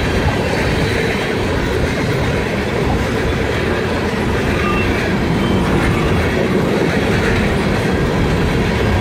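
Norfolk Southern freight train's cars (boxcars, a tank car and covered hoppers) rolling past at speed, steel wheels on the rails making a steady, unbroken noise.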